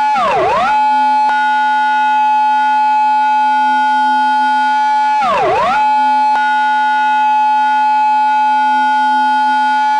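Japanese police car siren in its intersection-entry pattern: a steady, loud held tone that twice dips sharply in pitch and swoops straight back up, about five seconds apart.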